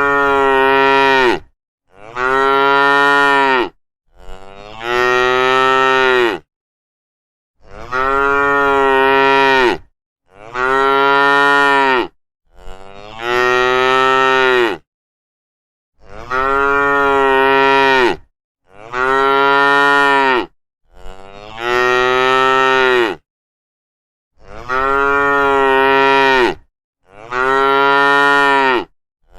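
Cow mooing: about eleven long moos in a row, each about two seconds long, at a steady pitch, with dead silence between them.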